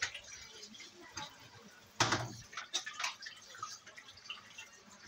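Water splashing and dripping in a stainless-steel sink as peeled green plantains are washed by hand, with scattered knocks and ticks of fruit and bowls against the sink. The loudest is a clatter about two seconds in.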